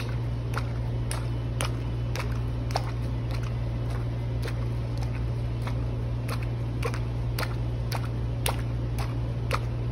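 A steady low hum with light, irregular clicks and taps over it, about two or three a second.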